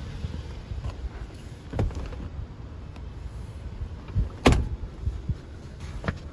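A low rumble with a few soft knocks. About four and a half seconds in comes a loud sharp thud of the 2018 Volkswagen Tiguan's door shutting, followed by a couple of small clicks.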